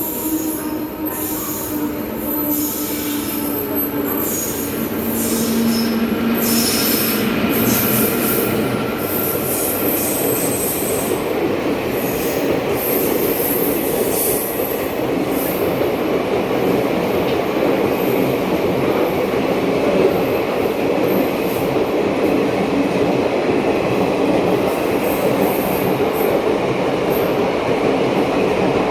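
A train running past on the track, with high-pitched wheel squeal over roughly the first ten seconds, giving way to a steady rumble of wheels and cars.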